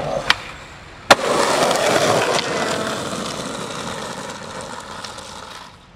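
A skateboard rolling over a rough, gritty surface. There is a light click, then a sharp board clack about a second in, after which the rolling noise of the wheels slowly fades away.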